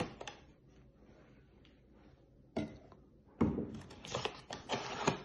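A single knock, then a couple of seconds of rustling and scraping in bursts. These are handling noises of kitchen things being picked up and moved around to scoop flour.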